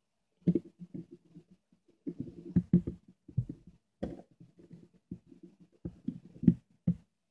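Handling noise from a plastic multimeter case: irregular clicks and knocks as a 9 V battery is seated in its compartment and the back is pressed shut, the loudest knock about six and a half seconds in.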